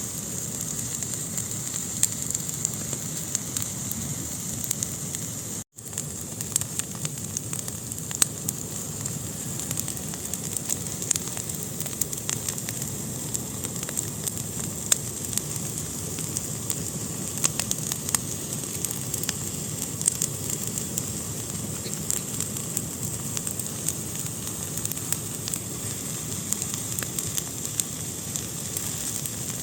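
Wood fire burning in a fireplace: a steady hiss with frequent sharp crackles and pops. The sound drops out for a split second about six seconds in.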